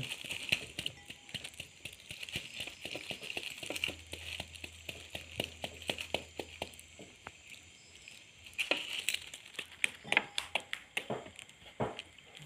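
Papery hornet comb crackling and crinkling as larvae and pupae are picked out of its cells by hand, many small irregular clicks, thicker after the middle.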